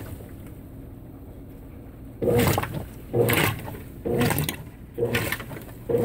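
Consul 16 kg top-load washing machine agitating a small load of wool sweaters in low water. The motor is quiet for about two seconds, then the load sloshes and splashes in strokes about once a second.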